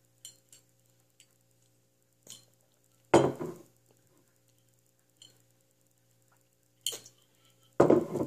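Glass Ramune soda bottle being drunk from and handled: light clinks as the glass marble shifts in the bottle neck, with two louder knocks, about three seconds in and near the end.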